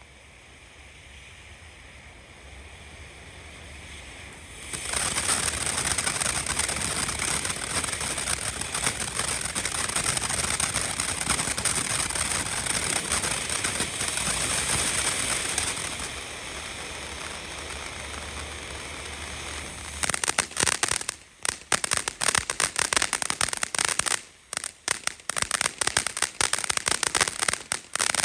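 Planet X Bermuda Triangle firework fountain burning with a steady spraying hiss. The hiss grows, jumps sharply louder about five seconds in and eases a little later on. About twenty seconds in it gives way to dense, irregular crackling.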